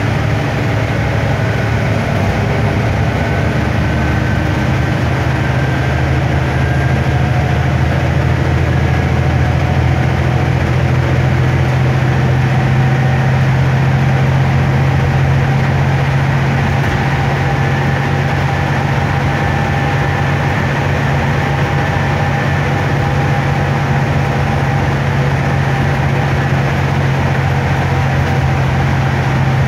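Cabin noise of a Stagecoach Gold bus on the move: a steady low engine drone with road and tyre noise at an even speed.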